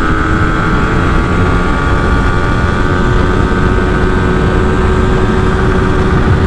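Yamaha 155 cc single-cylinder motorcycle engine held at high revs under full throttle in fifth gear, its pitch nearly steady as the bike gains speed toward top speed, over heavy wind rush on the microphone.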